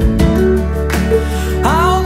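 Background music: a pop song with a steady low bass and held chords, and a sung note that bends in pitch near the end.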